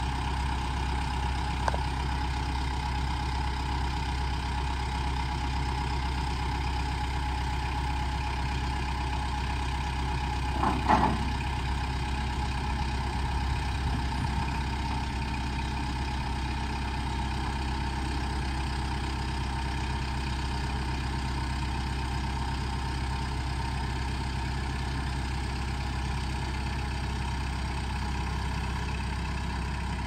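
Farm tractor's diesel engine running steadily at idle, with a steady whine over it while the loader forks set a heavy steel sawmill frame down onto timbers. A small click about two seconds in and a louder metal clank about eleven seconds in.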